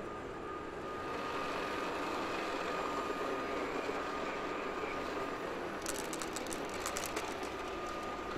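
Steady background noise of a large exhibition hall, with a thin steady tone over it. About six seconds in comes a quick run of sharp clicks lasting just over a second.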